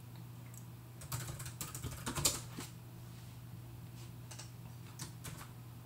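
Computer keyboard keys tapped while a password is typed into a terminal. A quick run of keystrokes comes about a second in and lasts under two seconds, followed by a few single taps near the end.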